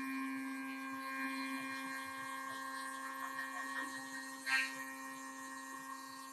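MR-1 CNC mill's spindle driving a half-inch end mill across an aluminium base plate on a facing pass: a steady whine that slowly grows quieter, with one brief sharp tick about four and a half seconds in.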